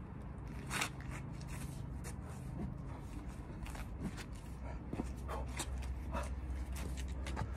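Feet scuffing and stepping on a stone patio while a long staff is picked up off the paving and swung: a run of short, irregular scrapes and taps over a low, steady hum.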